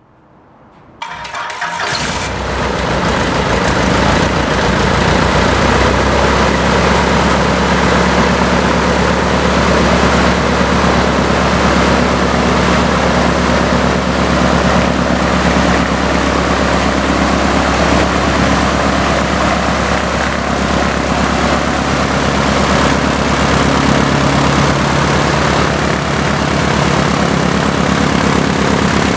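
Lycoming O-320 four-cylinder aircraft engine starting up about a second in, building over a couple of seconds and settling into a steady run with the propeller turning, on a ground run-up.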